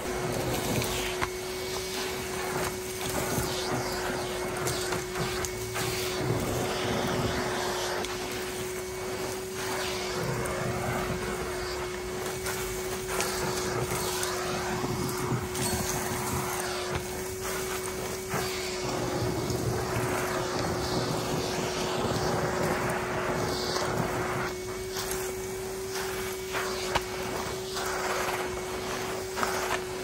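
Numatic Henry cylinder vacuum cleaner running with a steady motor whine, its floor tool pushed back and forth across a rug, sucking up dirt and fluff.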